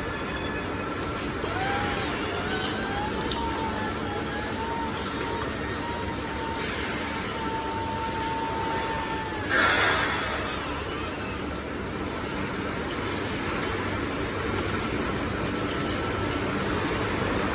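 Pneumatic steel strapping tool working blued steel strap around a bundle of pipes: a thin whine that rises and then holds steady for several seconds, cut off by a short sharp hiss of air about ten seconds in. A steady machine hum sits under it throughout.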